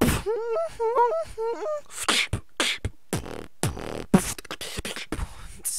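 Beatboxer's vocal multi-tone effect, two or three whistly pitches sung at once in short arching swoops for about a second and a half, then a beatbox beat of mouth kick drums and hissy hi-hat and snare sounds.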